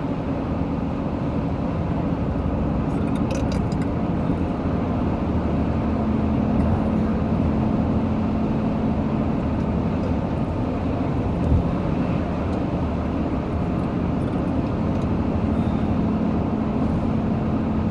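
Loud steady car driving noise inside the cabin: road and engine noise with a low steady drone, and one short thump about two-thirds of the way through.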